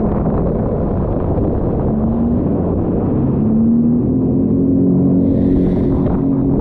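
Sea-Doo jet ski engine running under throttle over a loud rushing noise. Its pitch climbs twice a few seconds in, then holds steady.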